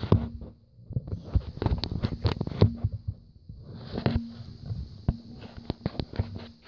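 Handling noise from the camera being picked up and repositioned: irregular knocks, taps and rubbing of fingers against the body near the microphone.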